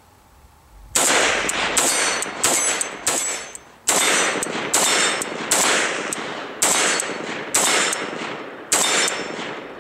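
Semi-automatic shots from a Zastava O-PAP AK-pattern rifle in 7.62x39. After a brief quiet, about ten shots come at roughly one a second, each with an echo that rings out until the next.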